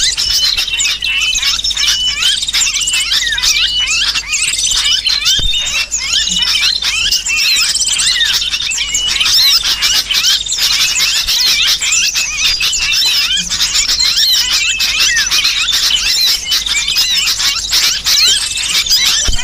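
Bird-lure recording: a dense, unbroken chorus of small birds chirping and squealing over one another, mixed with sooty-headed bulbul calls and the shrill distress calls of a trapped bird. It is played to draw wild birds in.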